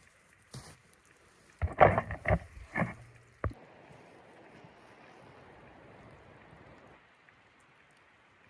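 A quick run of five or six knocks and thumps about two seconds in, then a faint steady hiss that fades out near the end.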